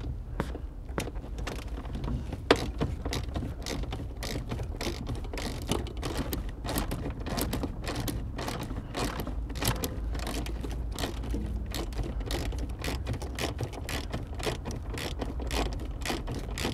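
Ratchet wrench with a 12 mm socket clicking rapidly and unevenly as it undoes one of the bolts holding the top of the steering column. One sharper click comes about two and a half seconds in.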